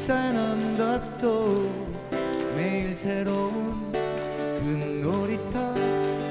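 A male voice sings a Korean folk-pop melody over strummed acoustic guitars in a live acoustic performance.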